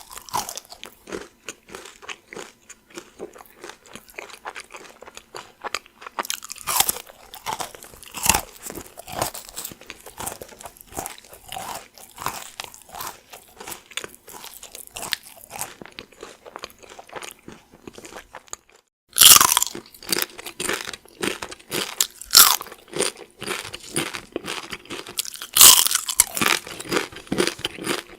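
Close-up chewing of Chocolate Rice Krispies, a dense run of small crisp crunches. After a short break about two-thirds of the way through, tortilla chips are bitten and chewed with louder, sharper crunches.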